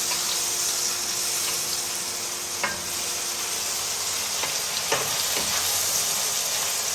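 Goat brain frying in mustard oil in a frying pan: a steady sizzle, with a few light clicks of a spatula against the pan, one about three seconds in and another near five seconds.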